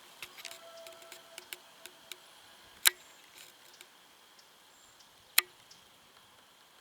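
A series of short, sharp clicks: a scatter of light ticks in the first two seconds, then two loud clicks about two and a half seconds apart, over a faint steady high hum.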